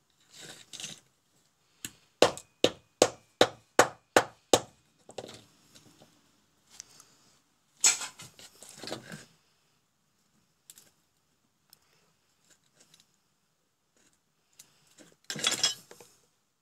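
Small electrical parts and wires handled on a workbench: a quick run of about eight sharp, evenly spaced clicks, a little under three a second, then rustling and clattering as the parts and cable are moved about.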